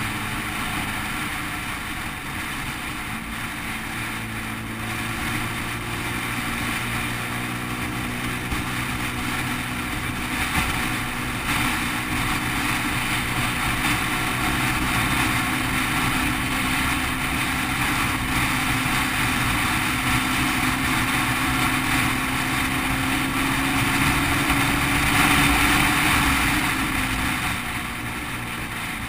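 Motorcycle engine running steadily at highway cruising speed, with wind rushing over the microphone. The engine note climbs slowly through the second half, then drops about a second before the end as the throttle eases.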